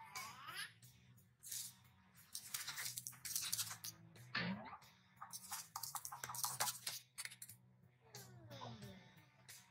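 Plastic clothespins cracking and snapping under a car tyre, in dense runs of sharp cracks through the middle. Squeaky cartoon voice effects slide in pitch near the start, in the middle and near the end, over background music.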